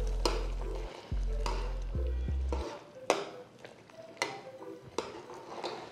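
Steel spoon stirring a thick, boiling vegetable-and-lentil gravy in a metal pot, scraping and knocking against the pot about once a second. A low hum runs underneath and cuts off suddenly about two and a half seconds in.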